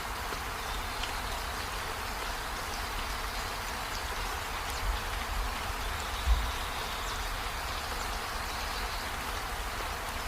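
Steady rain-like hiss, with a dull low thud about six seconds in.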